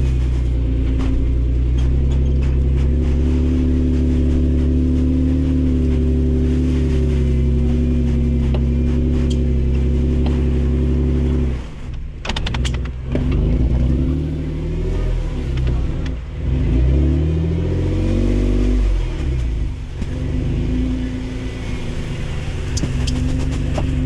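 Truck engine idling steadily. About halfway through, the note dips and then revs up and down under load as a pickup stuck in snow is pulled out on a recovery strap in low range.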